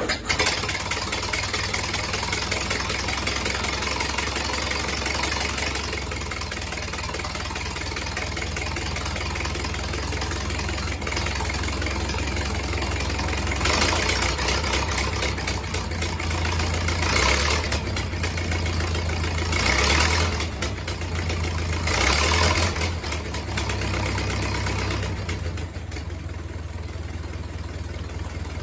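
Antique car engine catching on a cold start and then running steadily, with four brief surges in speed in the middle.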